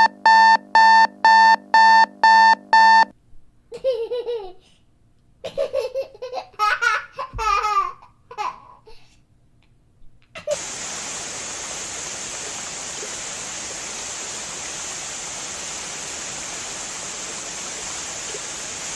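A string of sound effects: a pitched electronic beep repeating about twice a second stops about 3 s in; then a baby laughs in short bursts; from about 10 s on there is a steady hiss.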